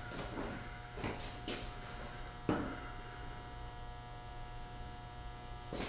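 Steady electrical mains hum in a workshop, with a few light knocks and clunks. The loudest knock comes about two and a half seconds in.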